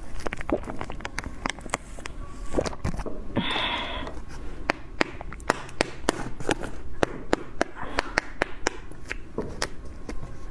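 Close-miked eating sounds: rapid wet mouth clicks and smacks while eating soft ice cream from a Magnum mini squeeze cup, with a short hiss-like slurp about three and a half seconds in.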